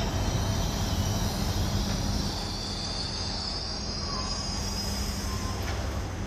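Passenger train rolling slowly into a station over a low rumble, with a high-pitched wheel and brake squeal that swells from about two seconds in as it slows to a stop.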